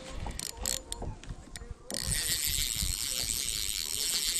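Spinning reel being cranked against a hooked fish on light line. Scattered faint clicks give way, about two seconds in, to a steady high-pitched ratcheting whir.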